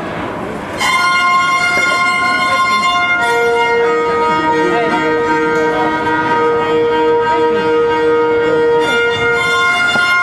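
Violin playing long held notes, starting about a second in. A lower pair of notes is held alongside them from about three seconds in until near the end.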